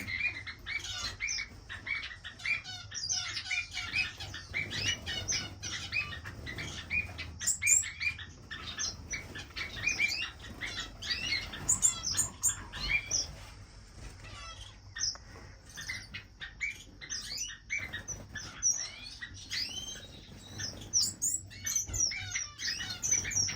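Many small finches chirping and trilling in a bird room, short quick calls overlapping throughout, with wings fluttering.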